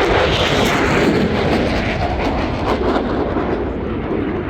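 Jet roar from a Blue Angels F/A-18 Super Hornet passing at high speed, loudest and brightest about the first second and then slowly fading, with a ragged crackle through it.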